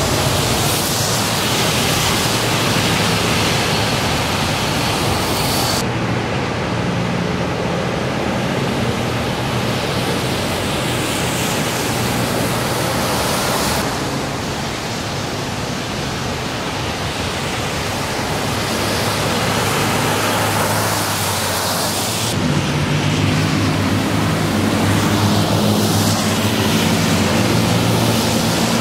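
Steady hiss of car tyres on rain-soaked roads, with the low hum of passing engines and the wash of rain. The noise changes abruptly three times.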